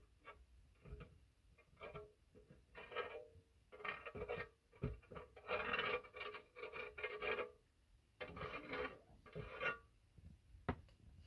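A wooden plank being scrubbed by hand, heard as a series of irregular rasping strokes, each about half a second to a second long. There is a single sharp knock near the end.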